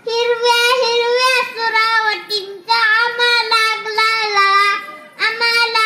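A young boy singing in long held notes, a slow chant-like line in three phrases with short breaths between them.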